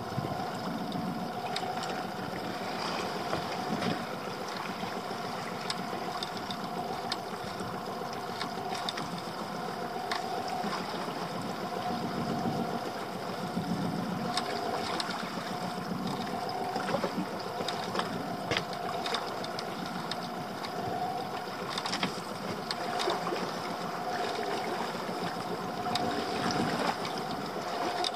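Small open boat drifting at sea, with water lapping at the hull, a steady hum underneath and scattered light knocks.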